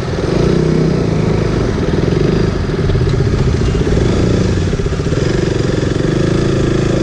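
Motorcycle engine running steadily at low speed, heard close up from the rider's seat.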